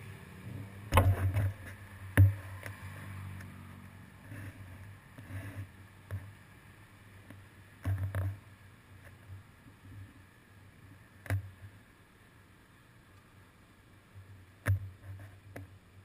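Muffled knocks and bumps picked up through a seat-post-mounted GoPro Hero 2 on a stopped bicycle, a handful of sharp ones spaced seconds apart, over a faint low rumble of passing cars.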